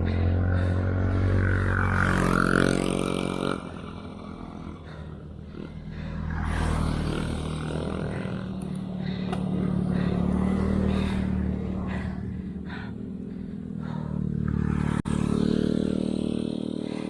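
Engine running, its pitch slowly rising and falling, loudest near the start and again near the end, with a single sharp click late on.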